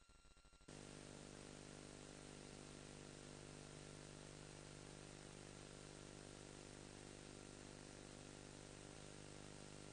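Near silence apart from a faint, steady electrical hum with hiss, which sets in less than a second in.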